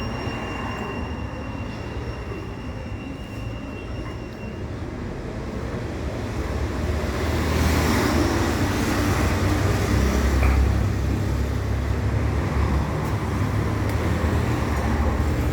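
Steady low rumble with a hiss, growing louder about halfway through, with a faint high whine in the first few seconds.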